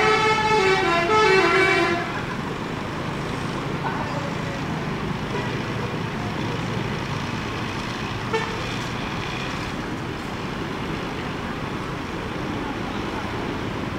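A bus horn sounds two loud blasts back to back in the first two seconds, the second note bending slightly downward. After that, steady background noise of traffic.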